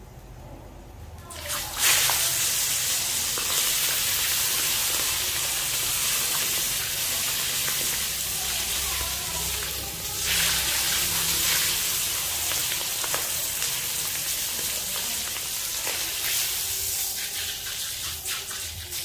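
Whole frog deep-frying in hot oil in a wok: a loud, steady sizzle breaks out suddenly about a second and a half in as the frog goes into the oil, and flares up again about ten seconds in.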